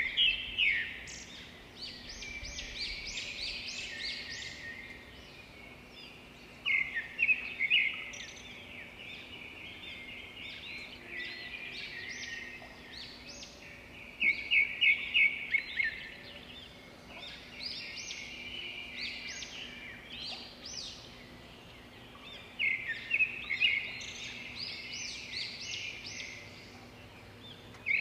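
A songbird singing: phrases of quick, high chirping notes that come loudest about every seven seconds, with softer twittering between them.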